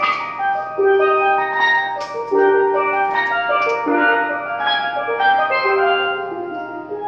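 Steelpan played in a quick run of struck notes, each ringing briefly, a melody moving over a lower line. The playing grows quieter near the end.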